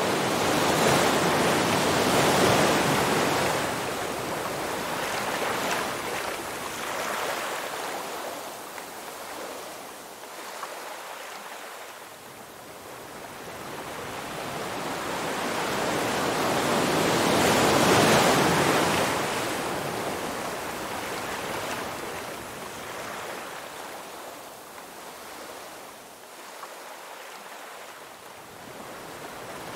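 Ocean surf: waves breaking and washing up a beach in slow swells. Two big surges rise and fall about fifteen seconds apart, with a quieter wash between them.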